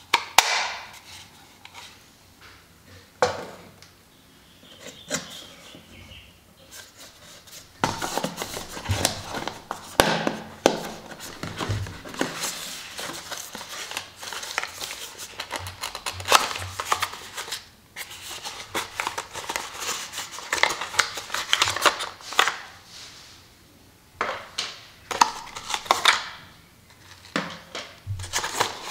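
Unboxing handling noise: sharp plastic clicks and knocks from the DJI Mini 3 Pro's battery charging hub being handled, then cardboard box inserts scraping, rustling and knocking as they are lifted and slid out of the box, busiest from about eight seconds in.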